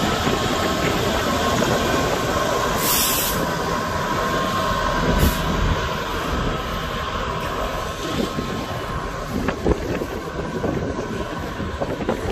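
DB Cargo Class 66 diesel-electric locomotive 66001, with its two-stroke V12 EMD engine, running past with a steady whine that fades after about eight seconds as the loco draws away. The train of loaded box wagons follows, its wheels clicking over rail joints in the later part.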